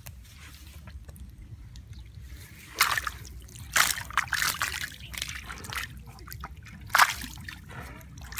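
Splashing and sloshing in shallow muddy water as fish thrash in the shallows: sharp splashes about three and four seconds in, smaller ones after, and another sharp splash near seven seconds.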